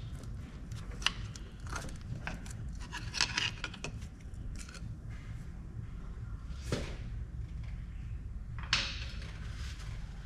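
Small pry bar working an old oil seal out of a Toyota Hilux transfer case front output housing: scattered metal clicks and scrapes at irregular intervals, over a steady low hum.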